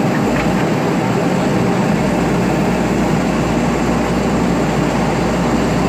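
JCB backhoe loader's diesel engine running steadily under load while the backhoe arm digs into a soil heap.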